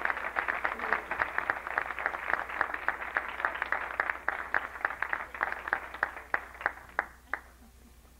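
Audience applauding, thinning to scattered claps and dying away about seven seconds in.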